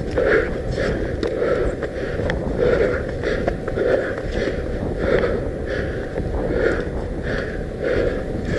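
Fast, rhythmic breathing, about three breaths every two seconds, over a steady low wind rumble on the microphone.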